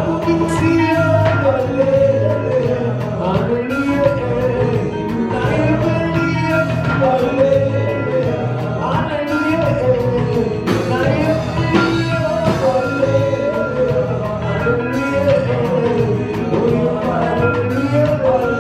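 Live church praise-and-worship music: voices singing a melody over a full band with a steady drum beat and bass.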